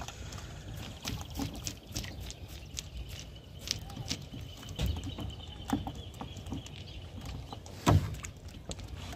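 Cast net being hauled up out of the water by hand alongside a small boat: water dripping and splashing off the mesh, with scattered light clicks and knocks and one louder thump about eight seconds in.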